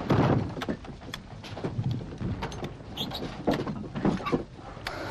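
A loud low rumble for about half a second at the start, then scattered hard knocks and clanks as ammunition boxes and gear are handled at an artillery position.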